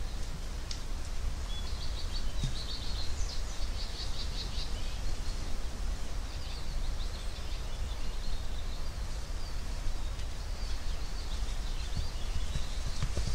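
Woodland ambience: small birds chirping in quick trills over a steady background hiss and deep rumble.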